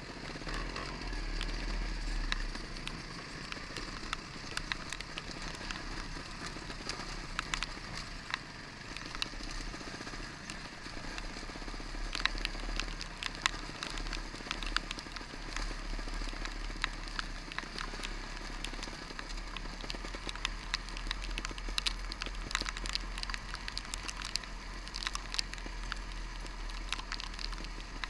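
Onboard sound of a trials motorcycle riding down a wet, stony track: its engine running steadily under many sharp ticks and crackles from rain and stones hitting the bike and camera, with wind rumbling on the microphone.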